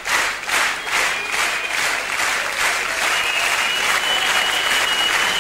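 Audience applause at the end of a live song, with rhythmic clapping at first that breaks into dense, uneven clapping. A thin, steady high tone runs over it in the second half.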